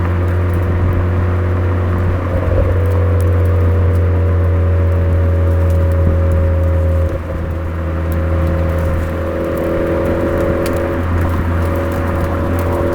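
Suzuki Swift Sport (ZC33S) 1.4-litre turbo four-cylinder running through a Fujitsubo aftermarket exhaust on a downhill run: a steady low exhaust drone whose pitch slowly falls, a short drop in level about seven seconds in, then the pitch climbing again.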